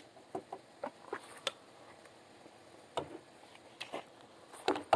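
Scattered light clicks and clacks of 9mm cartridges and a pistol being handled while the gun is readied to shoot, with a few sharper clicks about three seconds in and near the end.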